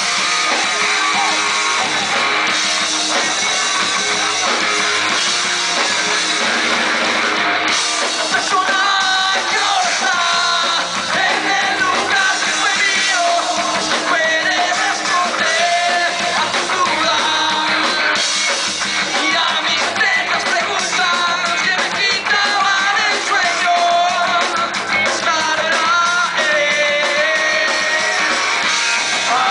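A punk rock band playing live and loud: electric guitars and a drum kit, with a singer coming in about eight seconds in.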